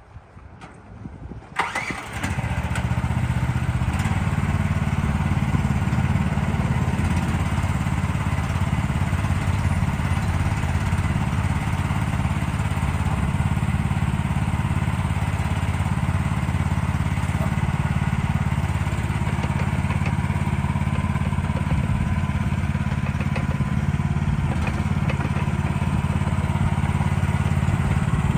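Gas engine of a Lanty LAT-13 mini excavator starting up about two seconds in, then running steadily.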